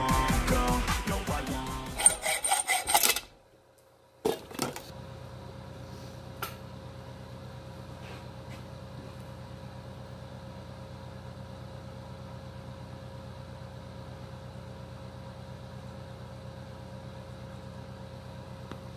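Hacksaw cutting a steel stud clamped in a bench vise, quick back-and-forth strokes under pop music, both cutting off about three seconds in. After a moment of near silence come a couple of light clicks, then a steady low hum with a few faint ticks as the cut stud is handled.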